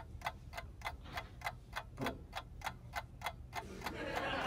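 Steady, rapid ticking, about five even ticks a second.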